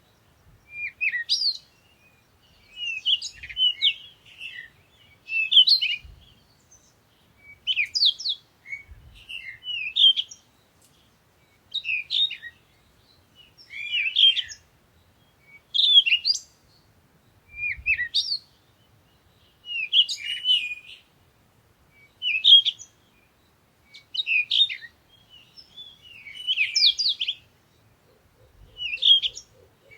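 A songbird singing short, quickly warbling high-pitched phrases, one every second or two with brief pauses between them.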